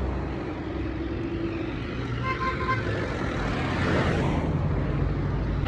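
Road traffic: vehicle engines running past with a steady low rumble that grows a little louder about four seconds in.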